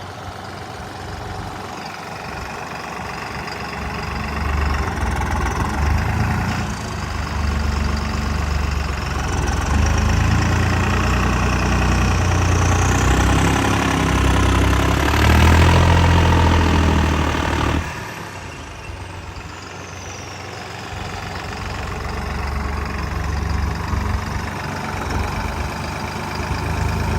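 Tractor engine labouring under load while climbing in sand. It builds to its loudest about two-thirds of the way in, drops off suddenly, then rises again.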